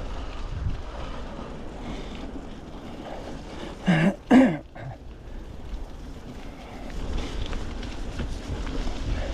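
Wind buffeting the microphone over the noise of a mountain bike rolling along a muddy trail. About four seconds in come two short, loud vocal sounds from the rider in quick succession.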